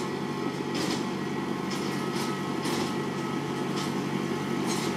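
Compact tractor engine running steadily as the tractor drives along a gravel path toward the listener, with a few short hissy rustles over it.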